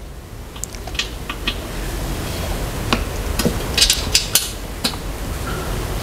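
Scattered taps and clinks on the hollow metal tube frame of a dining chair, with a quick cluster of knocks about four seconds in, over a low steady rumble.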